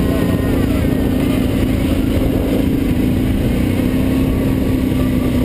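ATV (quad bike) engine running at a steady pitch while riding, heard close up from the rider's helmet camera.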